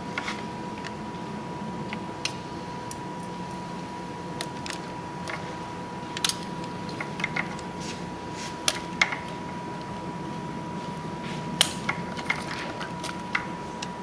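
Scattered plastic clicks, taps and rustles of hands working the electrical connectors and corrugated plastic wire loom of an LS engine's wiring harness while unplugging it. A few sharper clicks come a little past halfway.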